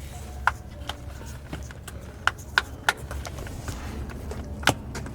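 Scattered sharp clicks and knocks, about seven, from plastic clips, connectors and parts being worked loose while the wiring harness is pulled out of the engine bay, over a low steady hum.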